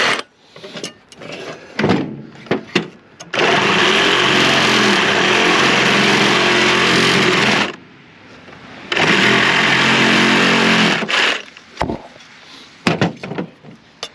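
A small motor running steadily in two long spells, the first about four seconds and the second about two, with short knocks and clinks of metal scrap between them.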